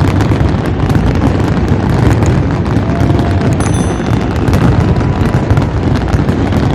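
Fireworks crackling: a dense, continuous mass of rapid pops and crackles over a low rumble.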